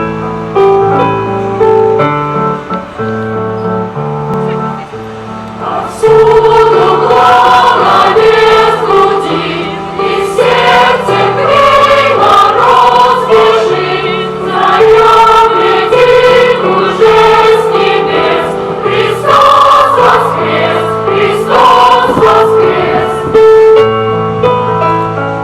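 Choir singing a sacred song over held chords; about six seconds in the music becomes louder and fuller.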